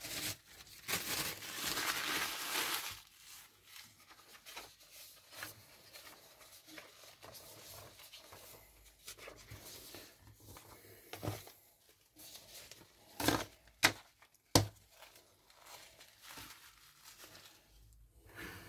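Hands handling parts on a workbench: a rustling, scraping stretch about a second in, then quieter handling with a few sharp clicks and knocks.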